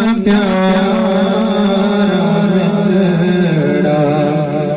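A voice chanting a slow, ornamented melody in long held notes, its pitch wavering and then stepping down about three and a half seconds in.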